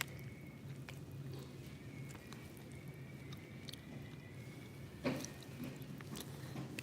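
A person chewing and biting fried eggs, with small wet mouth clicks over a steady low hum. One louder knock comes about five seconds in.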